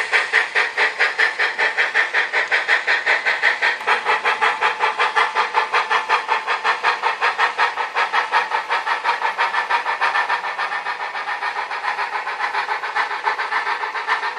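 HO-scale model steam locomotive's sound module playing a fast, even rhythm of hissing steam chuffs, getting a little quieter near the end.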